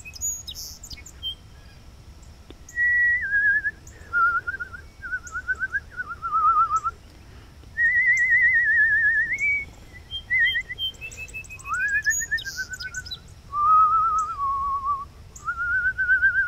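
Human whistling: a warbling tune with a wavering vibrato, in phrases of about a second that step up and down between notes. A song sparrow answers with faint, high, short chirps.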